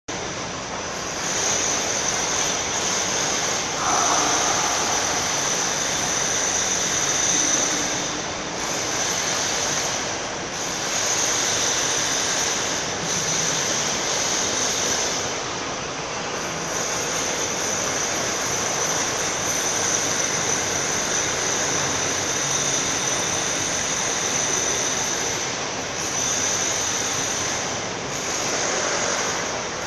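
Electric slewing and hoist drive of a pillar-mounted slewing jib crane running. A steady high-pitched whine sits over a broad hiss, and higher tones drop out and come back several times as it runs.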